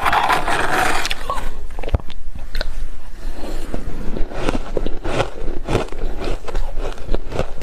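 Close-miked biting and chewing of freezer frost: soft, repeated crunches, with a longer grainy crunch in the first second.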